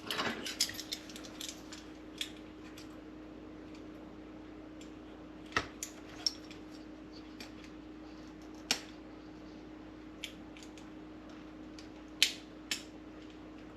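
Light clicks and taps of hands handling small parts and hoses inside an opened coffee machine: a quick cluster in the first second or so, then single clicks every second or two. A faint steady hum runs underneath.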